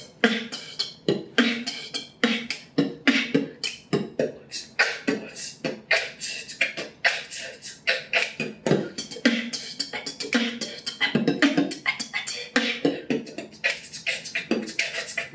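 Beatboxing: a fast run of mouth-made drum sounds, with sharp clicks, kick-like pops and hissing snare strokes several times a second.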